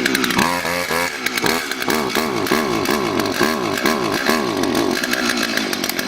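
Two-stroke chainsaw running unevenly just after starting, its engine speed surging up and down about twice a second. The saw is hard to get going and has not yet settled to a steady run.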